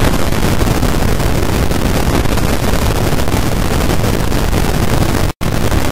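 Loud, steady static hiss across the whole range, with no pitch or rhythm, cutting out for a split second near the end.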